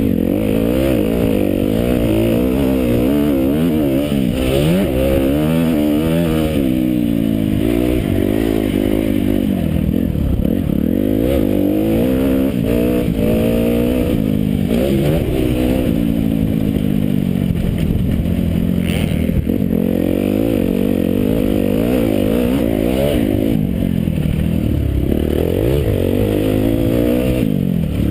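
Motocross bike engine being ridden hard around a dirt track, revving up and dropping back again and again as the rider accelerates and shifts. Heard close up from a camera mounted on the bike, with steady rushing noise underneath.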